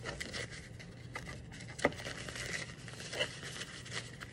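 Quiet rustling and crinkling of small packaging as camera accessories are unwrapped by hand, with a few light clicks, the clearest about two seconds in and again just after three seconds.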